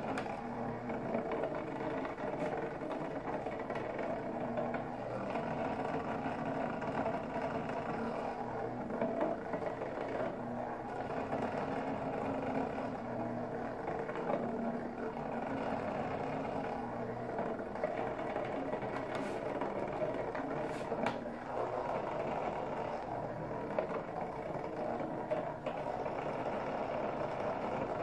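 Micro robotic bug toy buzzing steadily as its small vibration motor drives it around a plastic tray, with a couple of sharp ticks about two-thirds of the way through.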